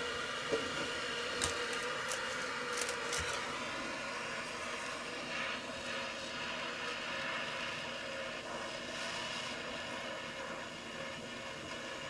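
Butane micro torch flame hissing steadily as it heats a PL259 connector to flow solder onto the coax, with a few light clicks in the first three seconds.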